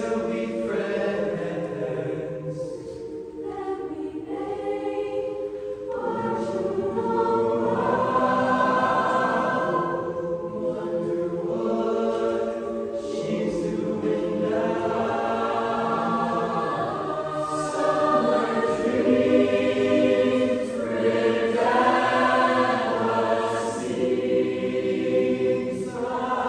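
Mixed youth choir singing a cappella in close harmony, building louder through the middle and loudest toward the end.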